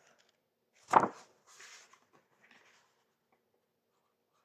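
A book being opened and handled: one sharp knock about a second in, followed by a brief soft paper rustle and a few small taps.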